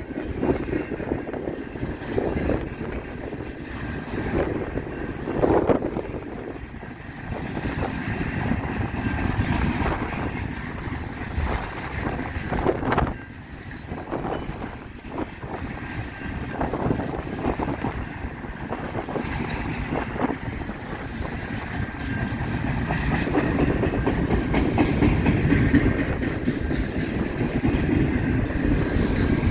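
Double-stack intermodal container well cars rolling past on steel rails: a steady wheel rumble broken by irregular clanks and knocks, growing louder near the end.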